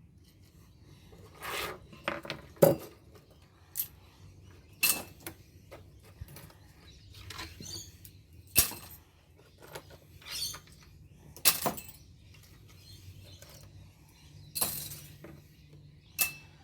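Scrap steel pieces from dismantled light ballasts clinking and clattering as they are cleared up, in about a dozen irregular knocks one to two seconds apart.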